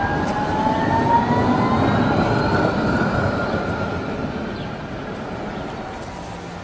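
Electric tram passing close by, its drive giving a rising whine over the rumble of its wheels on the rails, fading as it moves away.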